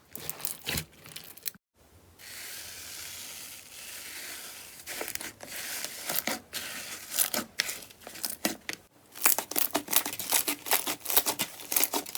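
Slime being handled and squeezed: sharp crackles and pops, with a brief cut to silence and then a steady hissing, tearing sound for about two seconds before the crackling returns, denser near the end.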